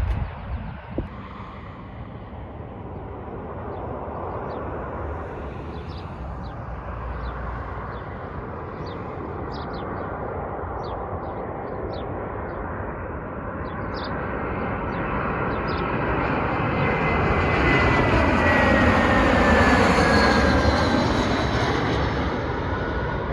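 Airliner passing low overhead on its landing approach: engine noise swells steadily to its loudest near the end, with a thin engine whine that drops in pitch as the aircraft goes over.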